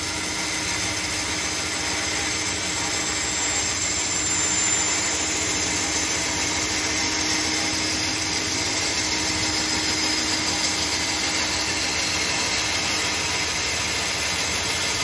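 Bandsaw running steadily, its blade cutting into a wooden block that is fed slowly along a curved line.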